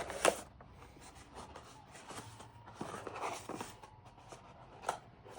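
Unboxing handling noise: scattered clicks, knocks and rustling of packaging and parts being handled, with a sharp knock just after the start and another near the end.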